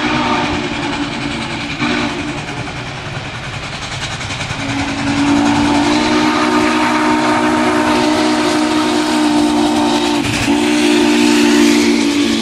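Norfolk & Western 611, a J-class 4-8-4 steam locomotive, blowing its chime whistle as a chord of several tones, over the hiss and rumble of the passing engine and passenger cars. The whistle stops about two seconds in, then sounds again as a long blast from about four and a half seconds in, with a short break about ten seconds in.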